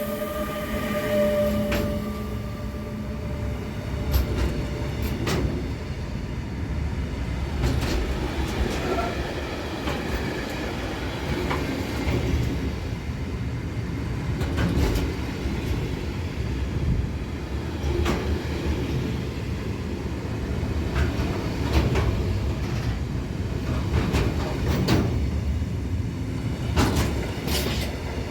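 A train rolling past, a steady low rumble with its wheels knocking over the rail joints many times. A whine from the train fades out in the first couple of seconds.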